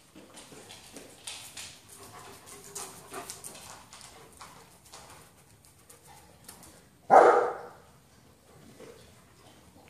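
German Shepherd giving a single loud bark about seven seconds in, after a few seconds of light clicking and scuffling from dogs' claws on the hard floor.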